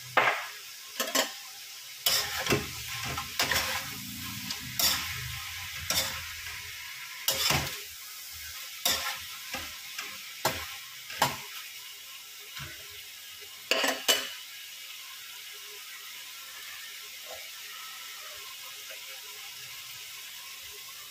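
A metal spoon clanking and scraping against an aluminium wok as chicken pieces are stirred, about a dozen sharp knocks over the first fourteen seconds. Under them the chicken sizzles steadily in the pan, and the sizzle goes on alone afterwards.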